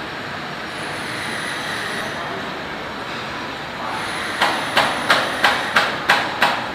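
Steady machinery noise at a tunnel-boring construction site. About four and a half seconds in, a run of about seven sharp hammer blows comes at roughly three a second.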